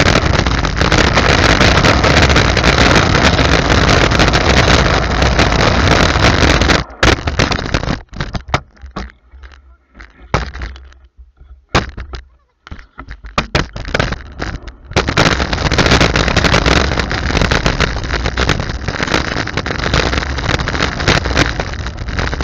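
Wind buffeting the microphone, with rolling rumble from a low-mounted camera moving along a street. It is a loud, even rush. About seven seconds in it breaks up into scattered crackles and short gaps, and it returns to a steady rush at around fifteen seconds.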